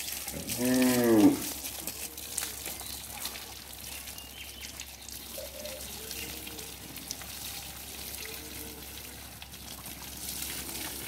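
A cow moos once, a single drawn-out call rising and falling, about half a second in. Water trickles and splashes faintly around it as the animal is being washed.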